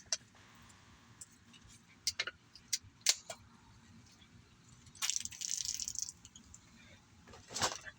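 Aluminium root beer can being handled while it is opened for shotgunning: scattered sharp clicks and taps, with a short hissing rush about five seconds in.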